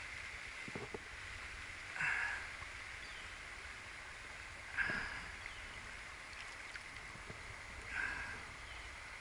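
Steady rush of a fast-flowing stream, with three brief louder swishes about three seconds apart.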